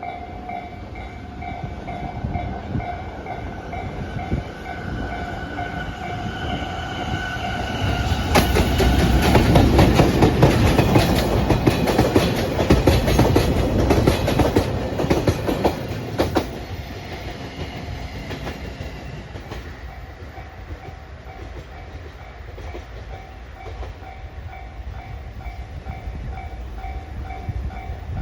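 Level-crossing warning bell ringing steadily as a JR Freight EF210 electric locomotive hauling four Koki container flatcars comes up and passes. The train is loudest for about eight seconds from around eight seconds in, with wheels clicking over the rail joints. Then the train noise dies away and the bell keeps ringing.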